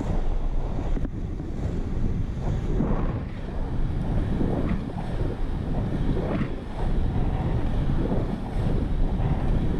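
Wind buffeting an action camera's microphone as an inline skater moves at speed, over the rumble of the skate wheels rolling on asphalt. The noise is dense and low, with uneven swells every second or so.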